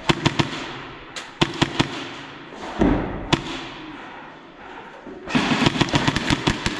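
Airsoft guns firing: short groups of sharp shots at the start and about a second and a half in, a single shot past the middle, then a long rapid string near the end. A dull thud comes about three seconds in.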